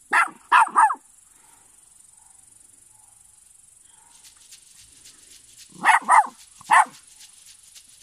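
Small Maltese dog barking during play: three quick barks, then three more about six seconds in.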